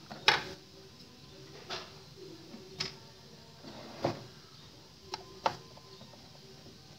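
About six sharp, irregular clicks and knocks, the loudest near the start: a screwdriver working the small screws of a Maldol SWR meter's metal case, and the case being shifted on a wooden table.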